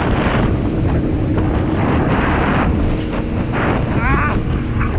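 Wind buffeting the microphone and water rushing and spraying under a wakeboard as it is towed at speed across a boat's wake, with a faint steady tone that may be the towboat's engine. About four seconds in comes a short wavering, voice-like call.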